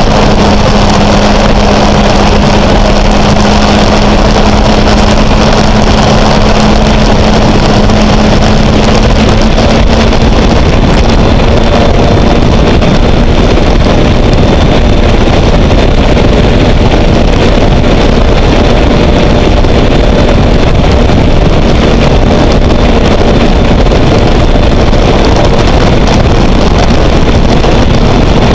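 Gas turbine engine of a Sanger catamaran race boat running under way: a loud, steady rush with a thin high whine throughout. A lower hum fades out about ten seconds in.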